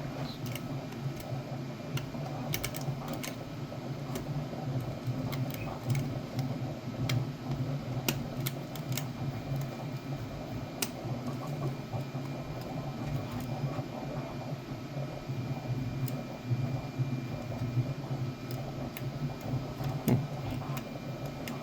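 Small metallic clicks and scrapes of a hook pick working the pins of a Brinks pin-tumbler deadbolt under tension, scattered irregularly, over a steady low hum.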